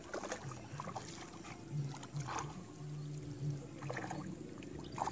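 Light splashes and knocks as a hooked tilapia is brought to the surface on a fixed-line tegek pole and taken by hand, over a faint low hum that comes and goes.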